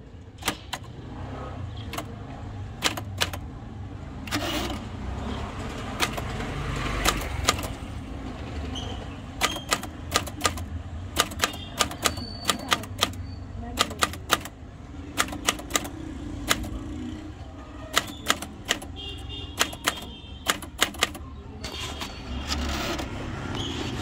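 Antique manual typewriter being typed on: sharp keystroke clacks, coming irregularly in quick runs with short pauses, over a steady low rumble.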